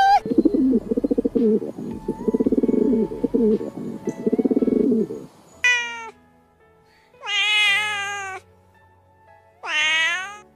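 A sea lion's low, rapidly pulsing bellow in several bouts lasting about five seconds, then a kitten meowing three times, the middle meow the longest.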